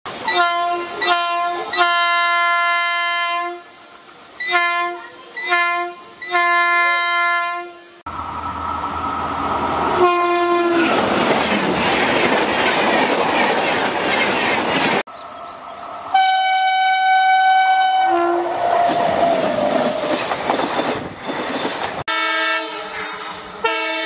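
Indian Railways locomotive horns in a run of short clips. An ALCO diesel locomotive sounds two short toots and a long blast, then the same again. Next, trains rush past with a loud rumble and clickety-clack of wheels, each with a horn blast, and near the end a locomotive horn sounds a chord of several tones.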